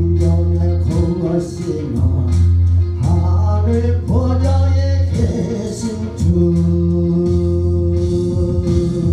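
A man singing a gospel song into a microphone over instrumental accompaniment with a steady bass.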